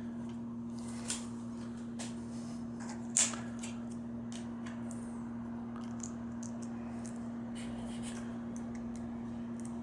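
Small clicks and crinkles of a Lego minifigure's plastic blind bag and pieces being handled, sparse and light, with the clearest clicks about a second in and just after three seconds. Beneath them runs a steady low hum.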